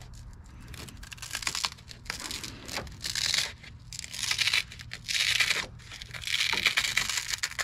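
An 800-grit sandpaper disc being pressed onto and adjusted on a drill's round sanding pad: about five short tearing, rasping noises, one after another.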